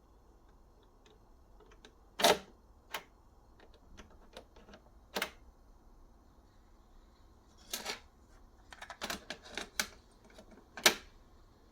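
Mechanical clicks and clunks from an Aiwa AD-1250 cassette deck being operated by hand, as its controls and tape mechanism are worked. There are a dozen or so sharp clicks at irregular intervals, with loud clunks about two seconds in and near the end, and a quick cluster of clicks shortly before the last one.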